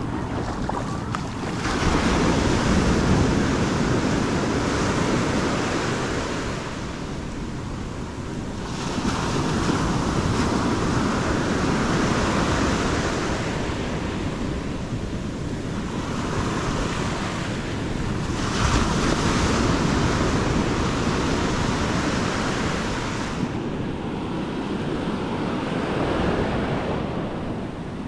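Ocean surf washing up and back over the sand at the water's edge: a steady rush of foam that swells and fades in long surges, three of them loud ones.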